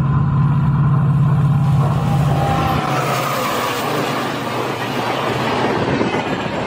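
Diesel locomotive passing close by at speed: a deep steady engine drone for the first few seconds, then the loud rushing clatter of the passenger coaches' wheels on the rails as they go by.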